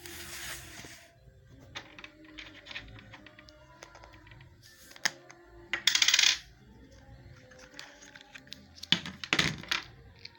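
Small hard metallic clicks and clinks, like tiny screws and a screwdriver being handled and set down on a hard surface while a laptop is taken apart, with a louder brief scraping rasp about six seconds in and a cluster of clicks near the end.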